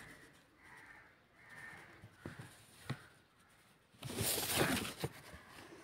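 Silk saree fabric rustling and crackling as hands fold and grip it, loudest for about a second near the end, with a few faint taps before it.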